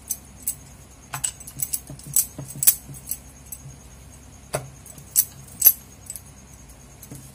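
Bangles clinking on the wrist and a wooden rolling pin knocking on a metal rolling board as dough is rolled out: irregular jingly clicks with a high ring, a few sharper ones about a second apart.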